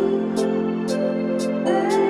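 Soft instrumental background music with sustained chords and a light, regular high percussion tick.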